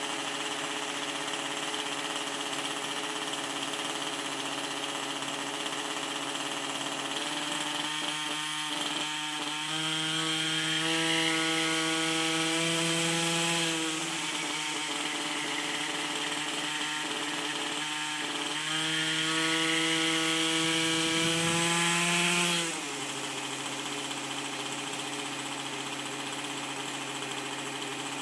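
Hirobo Shuttle RC helicopter's small two-stroke nitro glow engine running with its rotor turning. It is throttled up twice, about ten seconds in and again near twenty seconds, each time for about four seconds: the pitch rises and the engine gets louder, then drops back to a lower steady running note.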